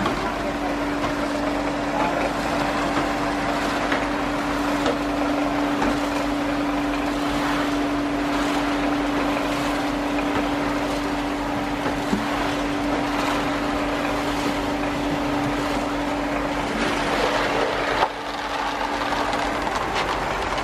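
Belt-driven rotating drum machine running steadily, with dried peas tumbling inside it. An electric motor's steady hum stops shortly before the end.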